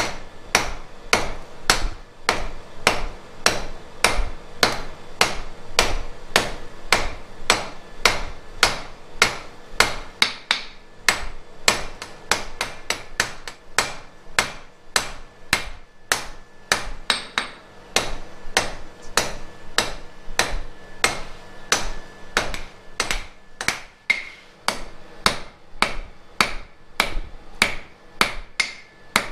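Hand hammer striking a red-hot flat iron bar on an anvil in a steady rhythm of about two to three blows a second, forging out the tines of a toasting fork.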